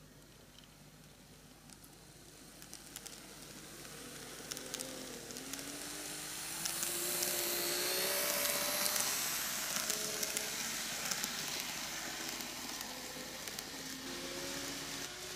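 N-gauge model of a JR Shikoku N2000 series diesel train pulling away and running past on the track: the motor's whine rises in pitch, with running noise and sharp clicks from the wheels. It grows louder to a peak about halfway through as the cars pass close by, then eases off a little.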